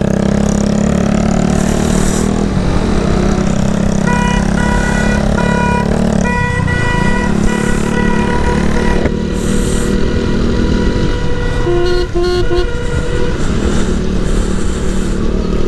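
Motorcycle engine running while riding in traffic. A vehicle horn sounds in two long blasts between about four and nine seconds in, and a shorter, lower horn toots near twelve seconds.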